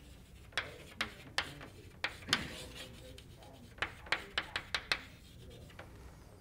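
Chalk writing on a blackboard: a string of sharp taps and short scratches as the letters go down, ending in a quick run of about six taps.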